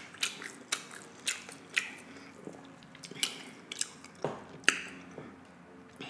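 Close-miked eating: a person chewing a mouthful of food, with a string of sharp, wet mouth clicks and smacks coming irregularly, about one or two a second.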